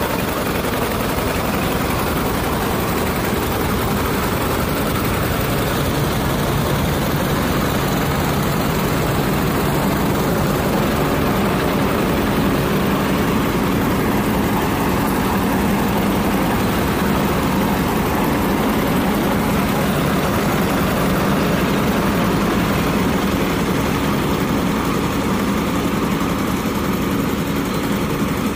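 Standard combine harvester running steadily under load while it cuts and threshes paddy: a loud, even machine noise with a steady engine hum underneath.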